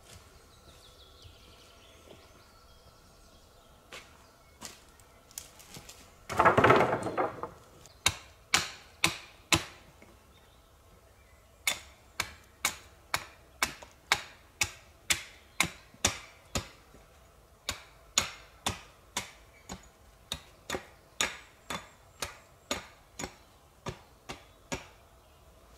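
An axe chopping a point onto the end of a wooden stake: sharp, evenly spaced strikes, about two a second, in runs with short pauses. About six seconds in there is one loud wooden clatter, the bundle of carried poles being dropped.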